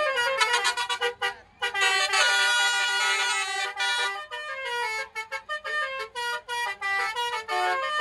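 Basuri musical air horns playing a fast tune of short notes, breaking off briefly about a second and a half in, then holding a long chord for about two seconds before the quick notes resume.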